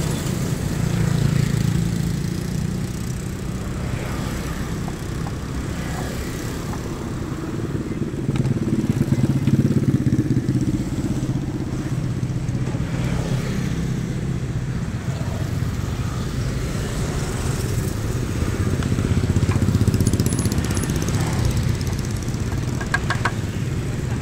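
Road traffic: engines of passing vehicles give a steady low rumble that swells louder three times, about two, ten and twenty seconds in.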